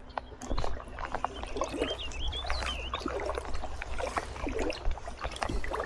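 Legs wading through shallow river water, sloshing and splashing with each stride over a low rumble of water pushing against them.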